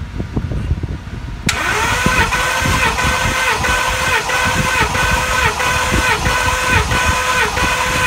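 A Ford 6.2L gasoline V8 being cranked over on its starter motor without firing, for a compression test on cylinder five. The starter starts about a second and a half in with a steady whine that dips in a regular rhythm, about twice a second, as the engine turns over.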